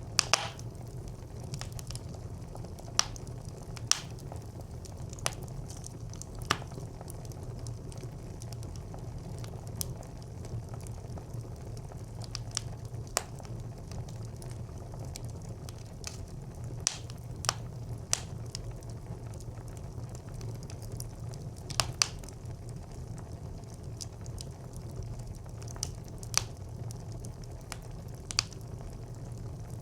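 Fire burning in a traditional brick clay stove: a steady low rumble of flame with irregular sharp crackles and pops, a cluster of loud pops right at the start and another about 22 seconds in.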